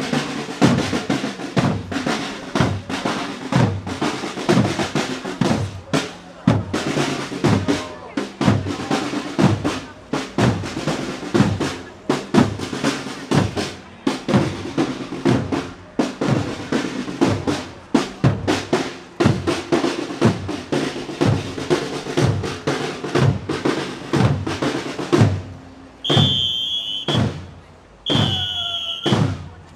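A drum corps beating drums together in a steady marching rhythm. Near the end, two long, high whistle blasts sound over the drumming.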